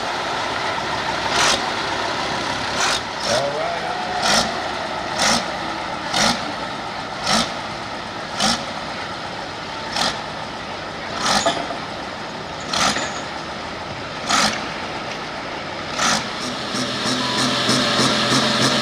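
Pulling-tractor engine noise broken by a sharp bang about once a second, the bangs spacing out as it goes. Near the end an engine revs up into a fast, even run.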